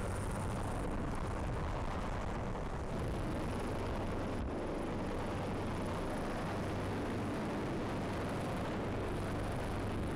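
Helicopter rotor and engine noise heard from just beneath the hovering helicopter, with rotor downwash buffeting the microphone. Steady and loud throughout, with a deep rotor throb and a faint high whine above it.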